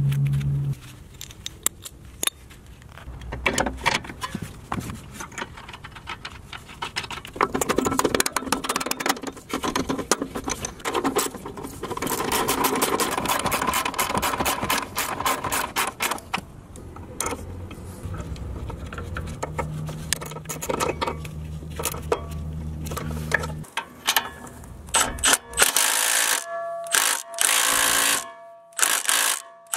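Socket ratchet clicking in runs of rapid clicks as suspension nuts are wound on and tightened, with metal parts clinking in between.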